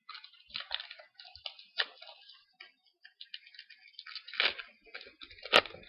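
Trading cards from a freshly opened foil pack being handled and flicked through by hand: an irregular run of small crackles and clicks, with one sharp snap near the end.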